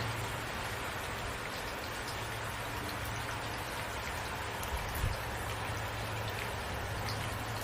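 Steady rain falling, with scattered drops pattering on a surface and a low rumble underneath; a soft low thump about five seconds in.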